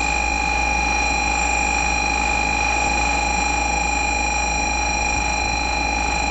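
Shinkansen platform departure bell ringing as one steady, high electronic tone: the signal that the train is about to depart.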